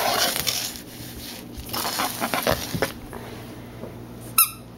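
Samoyed puppy moving about and panting on a hardwood floor, with scuffling noise at the start and one brief high squeak about four and a half seconds in.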